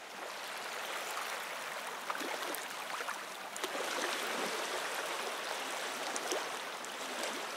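Small waves lapping on a pebble beach: a steady wash of water with scattered faint ticks.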